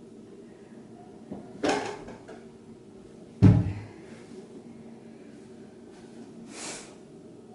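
Two knocks about two seconds apart, the second louder with a deep thud, then a short hiss near the end.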